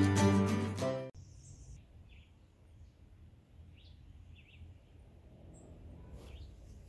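The end of a strummed acoustic-guitar intro tune, cutting off about a second in, then faint outdoor garden ambience with a few short bird chirps over a low rumble.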